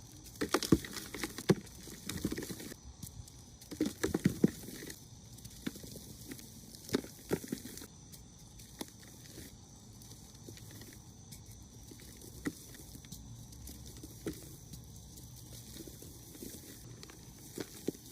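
Reformed block of dyed gym chalk being crushed and crumbled by hand: dry crunches and crackles that come in quick clusters in the first half, then thin out to scattered faint crackles.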